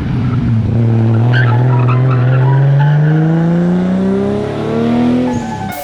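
Turbocharged 2JZ-GTE inline-six in a Nissan Cefiro pulling hard under acceleration, its pitch rising steadily for about five seconds before the driver lets off near the end.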